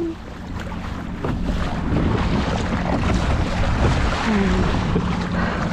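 Pedal-driven kayak moving through choppy sea: water rushing and splashing along the hull, with wind on the microphone. The water noise grows louder about a second and a half in and then holds steady.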